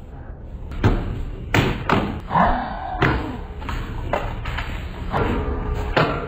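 A series of irregular thumps and knocks, about eight in six seconds.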